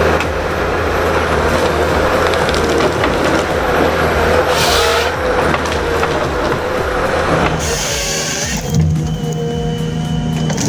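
Heavy forestry machine's diesel engine running under load, with wood cracking and splintering over it and a louder crackling burst about four and a half seconds in. The sound changes abruptly about eight seconds in.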